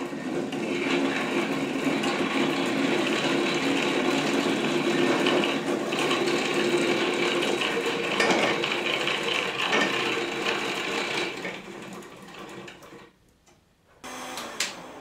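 A string binder running, winding thread around taped split-cane bamboo strips as they are fed through it: a steady mechanical whir with a constant hum. It winds down and stops shortly before the end.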